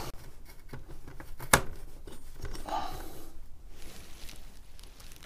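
Fingers handling the metal backplate, standoffs and nuts of a CPU cooler mount: light clicks and small rustles, with one sharper metallic click about one and a half seconds in.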